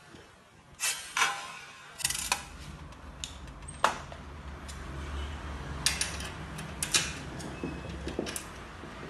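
Scattered clicks and knocks of metal parts being handled and fitted while a continuous band sealer is assembled by hand, over a low steady hum that comes in about two seconds in.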